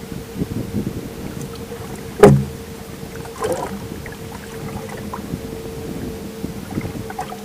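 Boat noise: a steady hum with one thin tone running through it. A single loud knock comes about two seconds in, and a smaller clatter follows about a second later.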